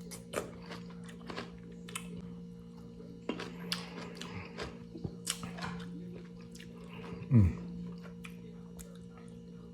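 Close-up chewing of pickled pepperoncini peppers, with irregular wet crunches and mouth clicks. About seven seconds in there is a short, loud, low vocal sound that drops in pitch.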